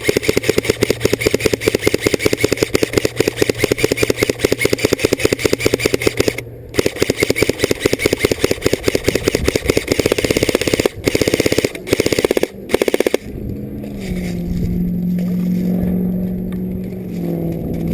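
Electric airsoft rifle firing on full auto: long rapid strings of shots, a brief pause about six seconds in, another long string, then three short bursts. After the firing stops, a vehicle engine runs steadily, rising in pitch near the end.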